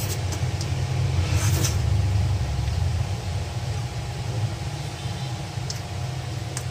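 A steady low rumble throughout, with brief wet mouth sounds of someone eating soft durian flesh by hand. The clearest comes about a second and a half in, and a few small clicks come near the start and near the end.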